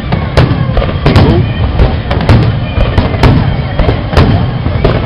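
Aerial fireworks shells bursting in a rapid string of loud bangs, about two a second, each followed by a rolling echo.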